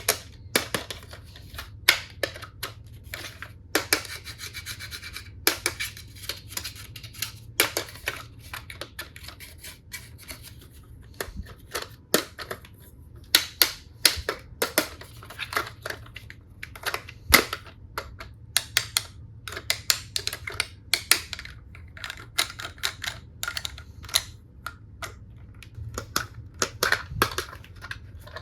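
Plastic toy tools and their packaging being handled: a long run of irregular sharp clicks and taps, with a short rustling stretch about four seconds in.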